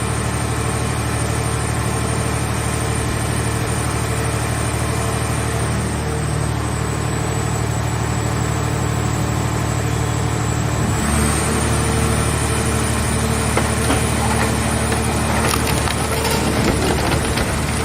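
Engine-driven hydraulic power unit of a mobile car-body baler running steadily. About eleven seconds in the engine note shifts as it takes load, and crackling and crunching follow as the car shell is pressed.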